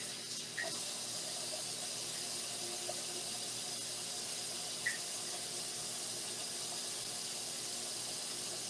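Kitchen tap running steadily, cold water pouring over boiled potatoes as they are peeled, with a couple of faint clicks from the handling.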